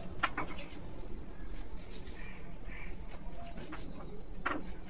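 Small knife scraping and cutting the skin off a raw green banana, with two sharper scrapes, just after the start and near the end.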